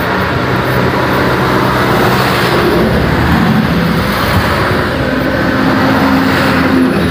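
Road traffic: the steady hum of heavy vehicle engines, swelling twice as vehicles pass close by.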